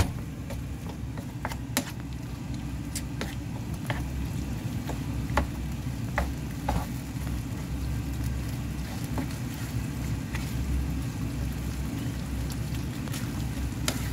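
A spicy gopchang and sundae stir-fry sizzling in a frying pan as a wooden spatula stirs it. Scattered clicks and scrapes of the spatula against the pan sound over a steady low rumble.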